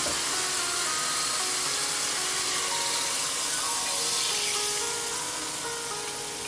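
Soy-sauce marinade poured into a hot pan of seared chicken on high heat, sizzling and hissing. Background music with held notes plays along.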